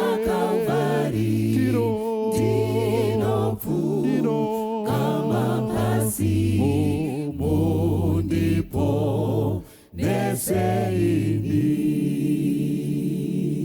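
Choir singing a Shona hymn unaccompanied, in several voice parts, ending on a long held chord near the end.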